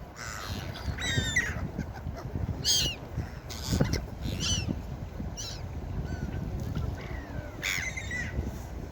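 Seagulls calling: a string of short, high cries repeated every second or so, some overlapping, over a low rumble.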